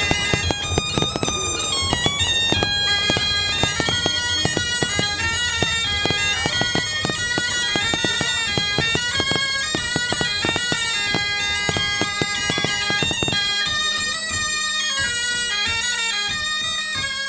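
Bagpipe music: a quick melody over a steady drone, with drumbeats that stop about thirteen seconds in while the pipes play on.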